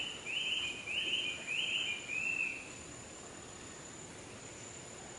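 Tropical jungle ambience: a chirping call repeated about every half second, five or so times over the first two and a half seconds, then stopping, over a steady high-pitched insect whine.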